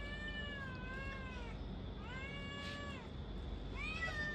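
Tabby cat yowling: three long, drawn-out calls that waver in pitch, the last one starting near the end.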